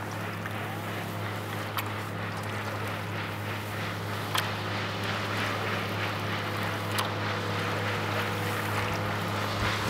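Double-bladed paddle strokes swishing and splashing water beside a small paddled boat, with three sharp clicks about two and a half seconds apart, over a steady low hum.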